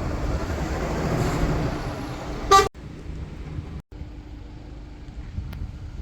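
Road vehicle passing, with a single short horn toot about two and a half seconds in. After that it is quieter, with a steady low engine hum.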